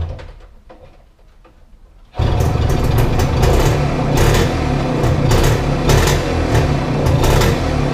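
A small engine running steadily, cutting in abruptly about two seconds in with a fast, rattly ticking over a low hum.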